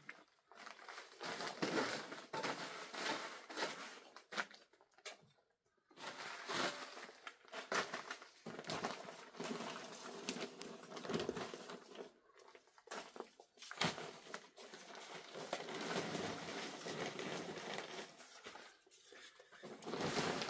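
Dry plaster powder being scooped and spread by hand over a plastic sheet: irregular bursts of rustling, crinkling and scraping, with a few sharp knocks.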